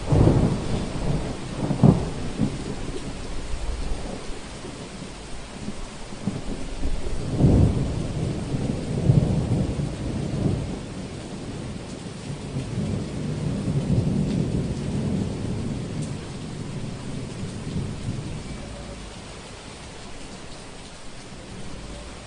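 Heavy rain falling steadily with thunder: a loud clap right at the start and a sharp crack about two seconds in, another peal about seven seconds in, then rolling rumbles that die away over the last few seconds.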